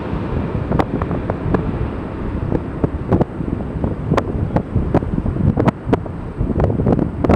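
Strong wind buffeting the microphone: a heavy low rumble with frequent crackling pops from the gusts. A jet airliner's engine noise fades away in the first second or so.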